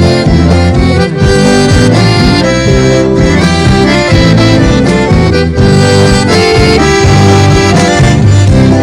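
Instrumental break of a sertanejo-style song, an accordion playing the melody over a steady rhythmic backing with bass.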